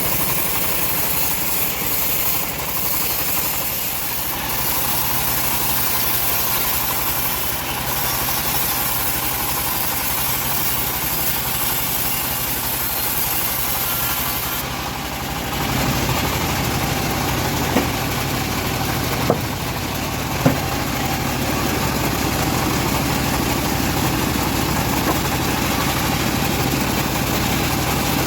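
Engine-driven bandsaw mill running steadily. About halfway through the low engine hum grows stronger, and a few sharp clicks follow shortly after.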